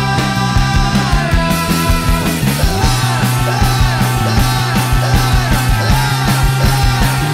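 Loud rock music with a steady, driving drum beat and a bass line.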